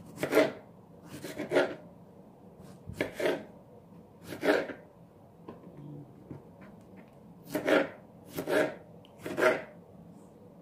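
Kitchen knife slicing through a tomato onto a plastic cutting board: a series of short sawing strokes, with a pause in the middle.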